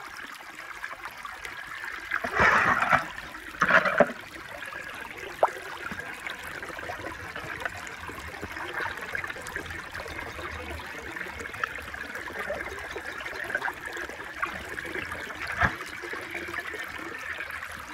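Water sloshing and trickling as a hand moves through a shallow pool to pick up die-cast toy cars, with two louder sloshes in the first few seconds and a few small clicks later.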